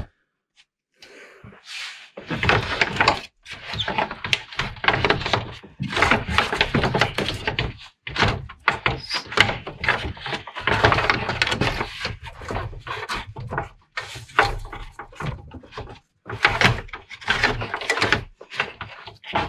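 Plastic cooling fan shroud of a 2011 Jeep Grand Cherokee being wrestled loose by hand. It makes irregular knocks, clunks and scraping as it rubs and bumps against the radiator and surrounding parts, starting about two seconds in.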